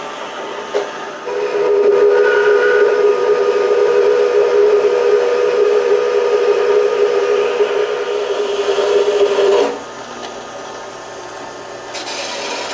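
4x6 horizontal metal-cutting bandsaw running while its blade cuts through a 4.5-inch pipe. A loud, steady ringing tone starts about a second in and stops suddenly after about eight seconds as the blade breaks through, leaving the saw's motor and blade running on.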